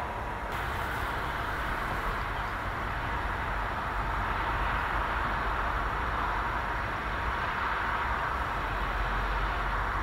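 Steady rushing noise with a low rumble underneath, even throughout, with no distinct bird calls.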